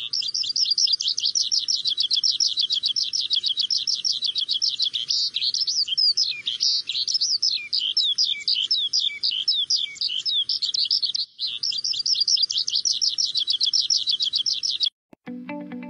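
Bird chirping in a fast, unbroken run of short high chirps, with a brief break about eleven seconds in, stopping shortly before the end.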